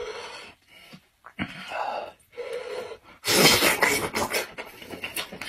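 Close-up mouth sounds of a man eating boiled lamb's head meat off the bone: wet chewing and smacking, with a much louder burst of mouth noise a little after three seconds in.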